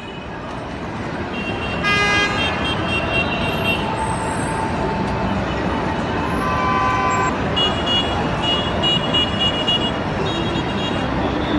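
Busy city street traffic, with vehicles running and repeated short horn toots and beeps.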